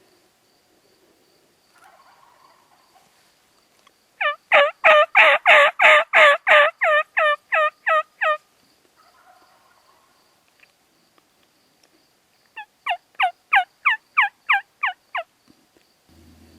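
Two series of loud turkey yelps, about four notes a second, each note breaking from a high to a lower pitch. The first run is longer, about seventeen notes, and fades toward its end; a shorter run of about eleven follows a few seconds later.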